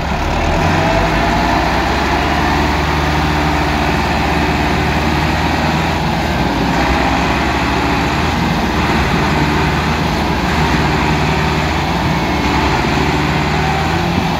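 Two diesel tractor engines running hard under load, one a Millat tractor, as they strain to free a loaded trolley stuck in mud. Steady low engine drone at a fairly even pitch.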